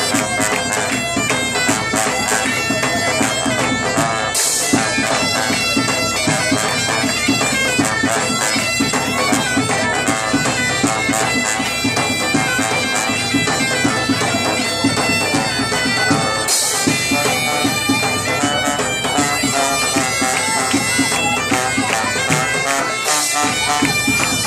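Bagpipes playing a lively dance tune with a trombone and other brass, over a steady beat. Three short bursts of hiss cut in about four, sixteen and twenty-three seconds in.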